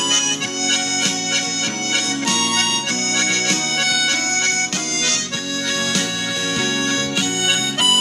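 Harmonica playing a melody, moving between short and held notes without a break.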